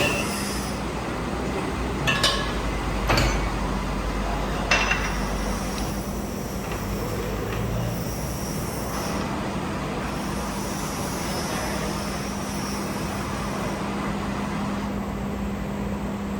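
Workshop machinery running with a steady hum, broken by three sharp metallic clanks in the first five seconds.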